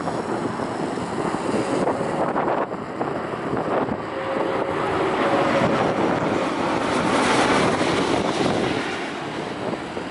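Jet engines of a twin-engine Airbus A330 on final approach passing low overhead, a steady rushing drone that swells to its loudest about seven seconds in, with wind buffeting the microphone.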